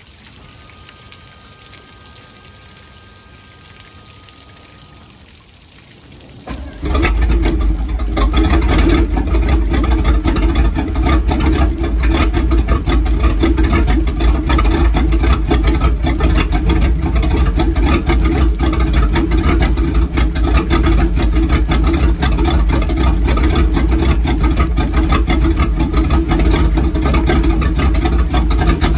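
Quiet trickle of hose water running through a speedboat's stern drive. About six and a half seconds in the boat's engine starts and then runs steadily on the trailer while fresh water from a hose on the drive flushes the salt water out of the motor.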